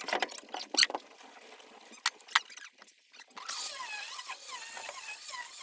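A few handling clicks and knocks, then about three and a half seconds in an angle grinder starts cutting into concrete blockwork, a high whine whose pitch wavers as the disc loads in the block.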